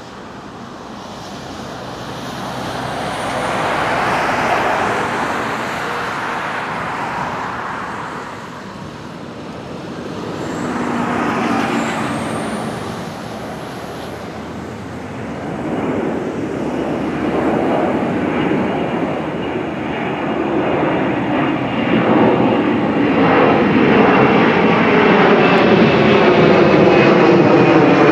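Boeing 767-300ER jet engines at takeoff thrust during lift-off and climb-out. The engine noise swells and ebbs twice, then grows steadily louder as the airliner climbs toward and over the listener, with a sweeping, phasing quality near the end.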